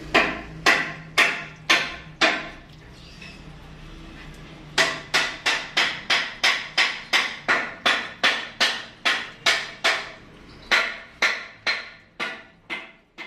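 Repeated sharp, ringing hammer blows: five about half a second apart, a short pause, then a steady faster run of about three a second that fades away near the end.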